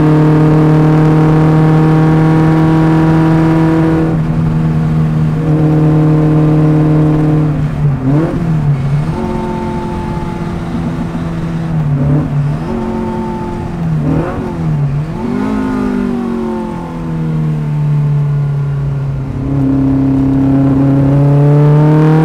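Fiat Abarth 1000's rear-mounted four-cylinder engine heard from inside the cabin under hard track driving. It holds high revs, then dips and rebounds in pitch several times through gear changes, and revs climb again as the car accelerates near the end.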